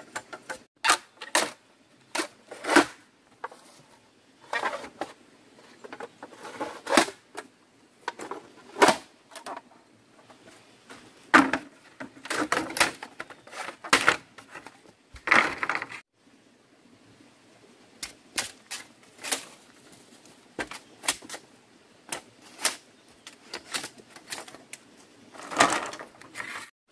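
Machete chopping at green bamboo poles: a series of sharp, irregular knocks, one every second or two, some with a short ringing after the blow.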